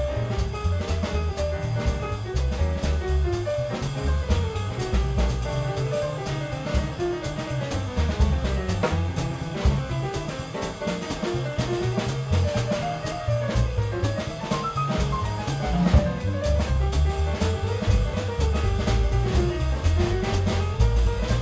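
Small jazz group of piano, electric guitar, upright bass and drum kit playing live: a single-note melodic line winds up and down over a stepping bass line and cymbal-driven drums.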